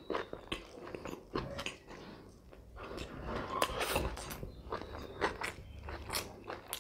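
Close-miked biting and chewing of a fried-fish sandwich: a mouthful crunched and chewed, with many irregular short crunching and clicking sounds.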